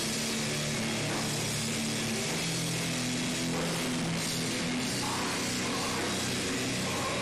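Heavy metal band playing live: distorted electric guitars, bass and drum kit pounding out a riff whose low notes shift every second or so.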